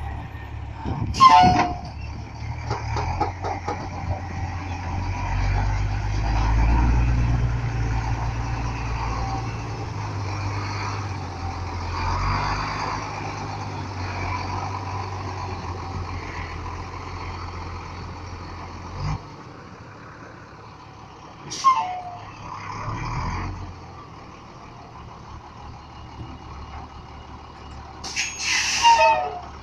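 International dump truck's diesel engine running as the truck moves off and pulls around. The engine is loudest in the first half and settles lower later. Its air brakes give short sharp hisses just after the start and about two-thirds through, and a longer hiss near the end.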